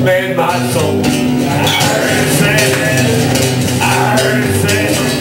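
Music playing with held, changing notes.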